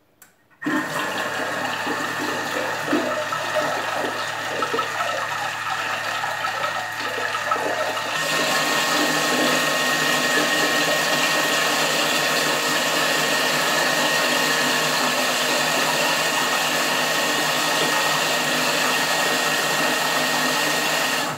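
Thermomix motor running on speed 4, churning a liquid quark, yogurt and egg filling into a smooth cream. It starts about half a second in, gets louder and brighter about eight seconds in, and stops abruptly at the end.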